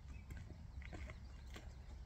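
Faint, irregular footsteps and rustles of someone walking over a grassy bank, with a steady low wind rumble on the microphone.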